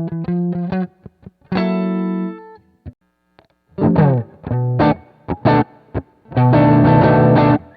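Electric guitar played direct through an impulse-response cabinet-simulator pedal (Sonicake Sonic IR). It plays a quick run of picked notes and a ringing chord, then after a short pause heavier distorted chord stabs and a long held distorted chord.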